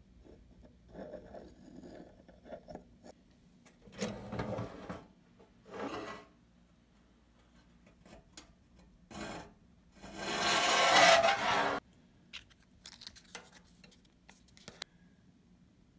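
Hands rubbing and scraping small model parts close to a phone's microphone, in several short bursts. The longest and loudest rub comes about ten seconds in and cuts off suddenly. A few light clicks follow near the end.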